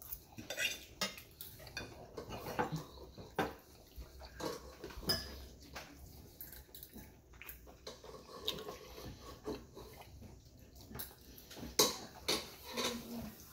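Steel knife and fork clinking and scraping against a ceramic plate while cutting and picking up food, in irregular sharp clicks.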